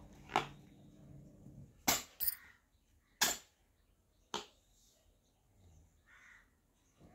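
A toddler's hand slapping the plastic tray of a baby walker: five sharp smacks in the first half, two of them close together.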